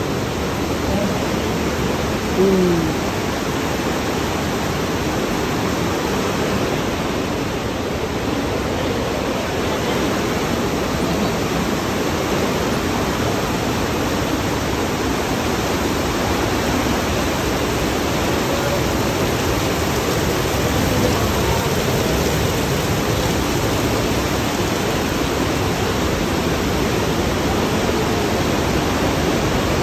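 Whitewater of the Partnach river rushing through a narrow rock gorge: a steady, loud hiss of water. A short falling tone sounds once about two and a half seconds in.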